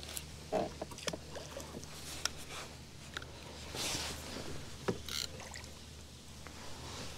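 Water splashing and sloshing with scattered clicks and knocks from a hooked carp being played.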